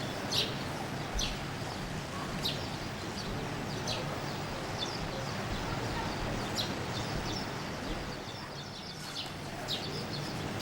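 Small birds chirping: short high chirps about every second, with fainter twittering between, over a steady background hiss.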